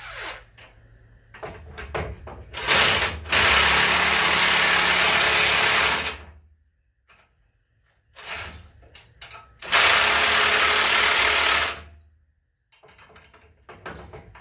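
Cordless impact wrench running nuts down onto the 7/16-inch bolts holding a spring mount to a truck frame: a few short blips, then two long runs of about three and two seconds.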